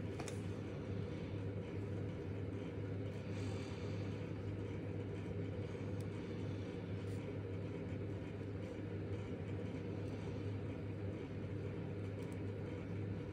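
A steady low background hum, even throughout, with a few faint soft ticks over it.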